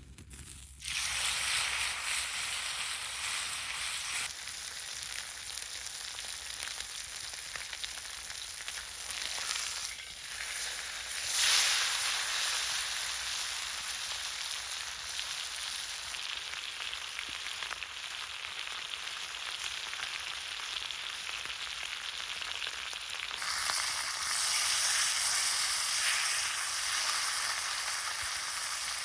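Steady rain hissing, its level jumping abruptly a few times.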